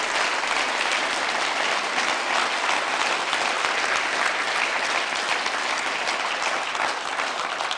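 Audience applauding steadily, the clapping starting to die away near the end.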